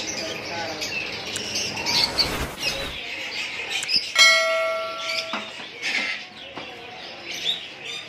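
Caged birds chirping over low background chatter. About four seconds in, a bright bell-like chime rings for about a second: the 'ding' sound effect of an animated Subscribe button.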